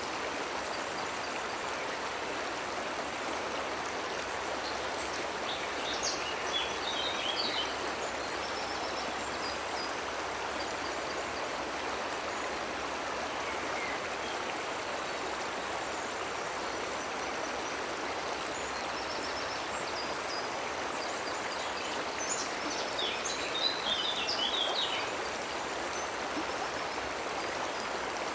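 Steady rushing of a cascading waterfall. A bird chirps in a short flurry about six seconds in and again later on.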